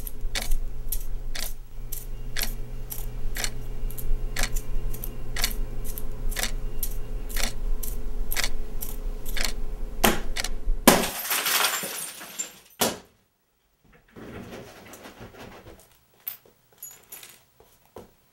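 Clock ticking loudly, about three ticks a second, over a steady low hum. About eleven seconds in a loud crash of shattering glass lasts a second or two and the hum cuts off with it. Quieter rustling and a few small clicks follow.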